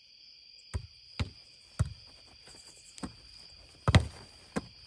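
A ball being hit and bounced in a boardball rally: six sharp slaps and thuds of hands on the ball and the ball on the board in about four seconds, the loudest near the end. A steady chorus of insects chirrs behind it.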